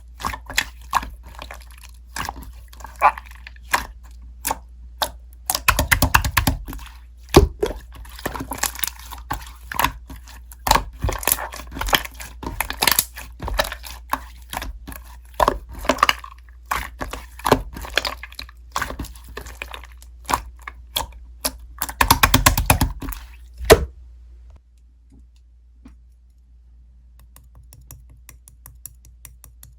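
Clay slime being squeezed and pressed by hand, giving a fast, irregular run of sticky clicks and pops, with two denser spells of squishing. The clicking stops about two-thirds of the way in, leaving only faint ticking.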